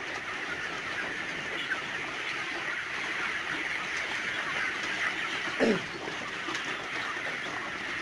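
A large flock of breeder chickens clucking and chattering together as they eat at the feeders, a steady, dense din. One brief rising call stands out a little past halfway.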